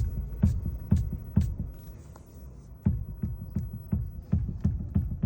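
Toyota Corolla Hybrid making a repeated low clunk, about two to three knocks a second, with a gap of about a second near the middle.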